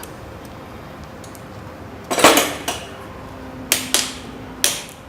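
Sharp metal taps and knocks from a tool working coil wire into the slots of a DC motor armature being rewound: a quick cluster about two seconds in, then three separate taps near the end.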